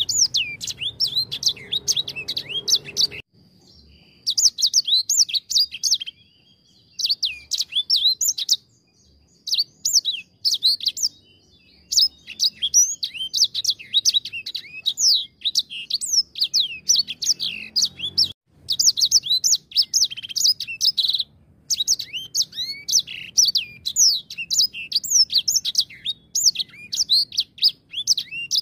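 An edel sanger, a canary-type songbird, singing a long, fast song of high chirps and trills, broken by several short pauses.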